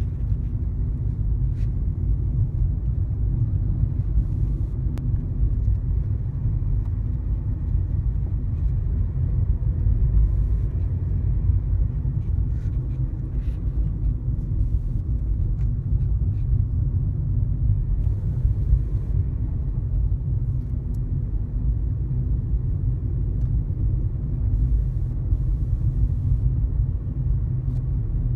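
Car driving at a steady road speed of about 60 km/h: a steady low rumble of tyres and engine, with a few faint ticks.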